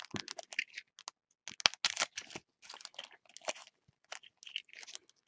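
Baseball trading cards and their foil pack wrappers being handled: a run of short, irregular rustles and crinkles as packs are opened and cards are sorted.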